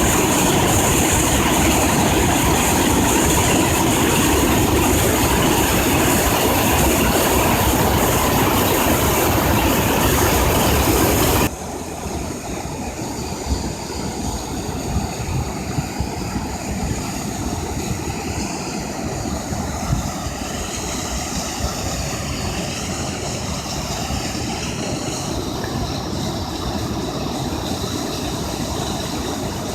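Waterfall's rushing water, a steady loud rush that cuts suddenly about eleven seconds in to a quieter, softer rush with faint wavering high tones above it.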